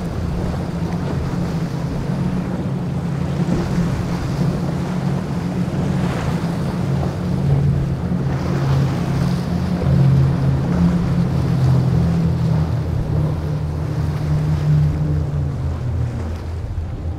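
Center-console boat's bank of outboard engines running at speed, with a steady engine hum that fades out near the end, over the rush of spray and breaking waves and wind buffeting the microphone.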